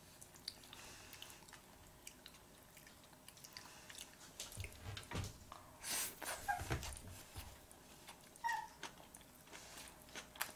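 Faint eating sounds: wooden chopsticks clicking and sushi being bitten and chewed, loudest about six seconds in. A couple of short high squeaks come near the middle.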